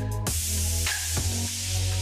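Electronic background music with a heavy, steady bass line and regular drum hits. A hissing noise wash comes in about a quarter of a second in and covers the top of the mix.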